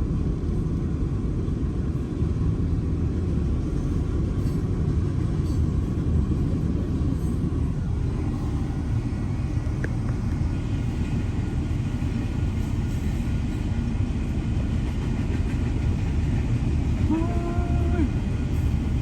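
A long train rolling past, its rail cars making a steady low rumble.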